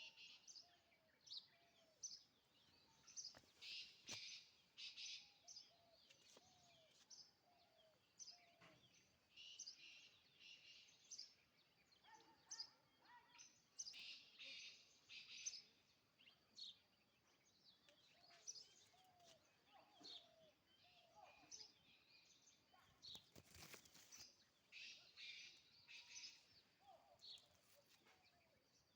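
Birds chirping faintly outdoors: repeated clusters of short, high chirps, with fainter lower gliding notes in between. There is a brief rustling noise about three quarters of the way through.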